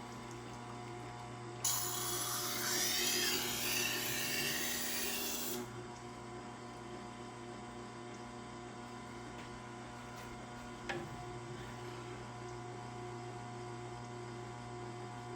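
Tormek water-cooled sharpener's motor humming steadily. A couple of seconds in, the MAC chef's knife edge is held to the turning wet grindstone for about four seconds, a loud hissy scraping grind. Near the end of that comes a single small click.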